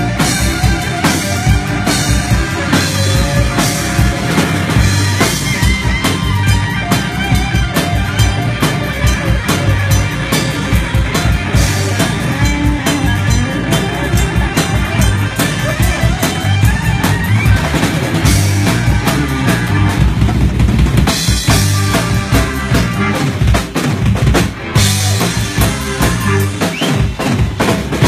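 Live rock band playing an instrumental passage without vocals: electric guitar lead over bass, keyboards and a steady drum-kit beat.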